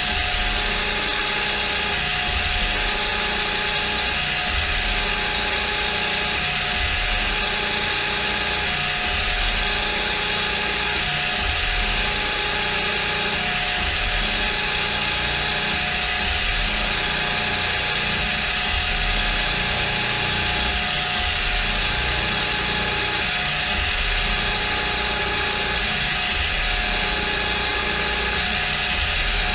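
Gear-driven spindle of a CNC mill running steadily through a machining cut, its gearbox giving a constant mechanical whine with several fixed tones.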